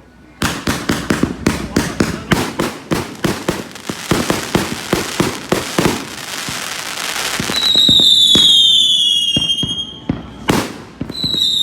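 Fireworks: a rapid string of sharp bangs, several a second, for about six seconds, merging into a dense crackle. Then a high whistle falling slowly in pitch, one loud bang near the end, and another whistle starting just before the end.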